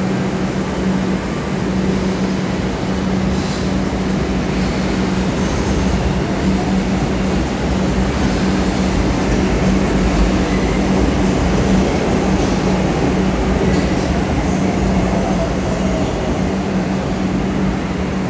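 Kolkata Metro train running alongside an underground platform: a continuous rumble of wheels and running gear with a constant low hum, swelling slightly midway.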